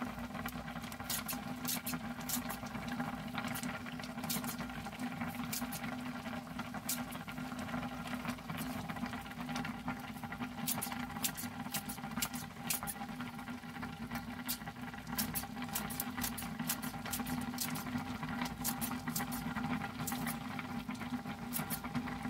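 Kitchen scissors snipping a green onion, many crisp snips in irregular runs, over the bubbling of a simmering pot of ramen and a steady low hum.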